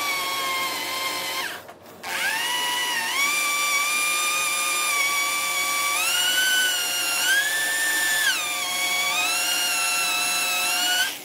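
Electric drill running under light pressure, its bit boring lengthwise through an oiled iron threaded rod. The motor's whine stops briefly about two seconds in, then restarts. After that its pitch steps up and down several times with the trigger and the load, and it stops at the end.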